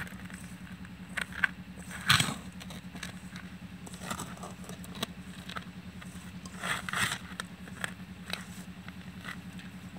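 Dry gram flour and spices being mixed by hand in a steel bowl: irregular scrapes and rustles of fingers and flour against the metal, loudest about two seconds in and again around seven seconds. A steady low hum runs underneath.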